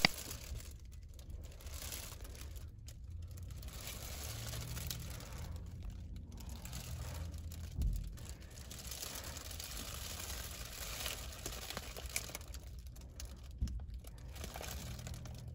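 Rustling and crinkling, like material being handled, in stretches broken by short pauses, with an occasional light knock.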